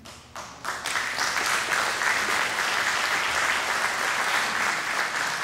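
Audience applauding: a few separate claps, then full applause that builds within the first second and holds steady.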